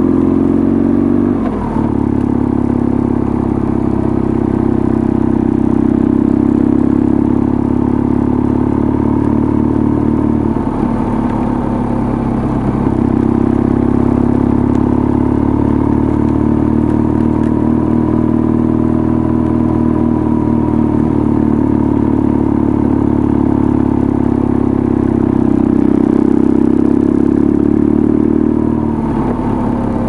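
Motorcycle engine running steadily while riding. The note breaks briefly a couple of seconds in, again around eleven seconds and near the end.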